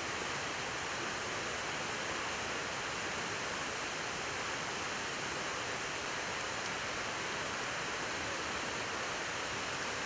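Waterfall rushing in a steady, even roar of falling water.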